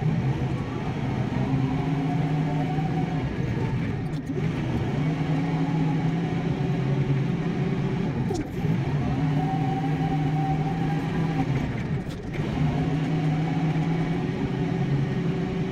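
Kioti compact tractor's diesel engine running under load while plowing snow with a front-mounted blade. The engine speed dips briefly and climbs back about every four seconds.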